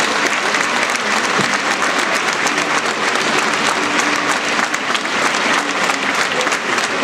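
Theatre audience applauding, a dense, steady clapping that holds at an even level throughout.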